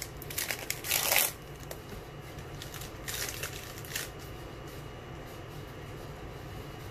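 Wrapper of a 2018 Topps Series 1 baseball card pack crinkling and tearing as it is opened, loudest about a second in, with a second shorter rustle around three seconds in. Then only a faint steady hum.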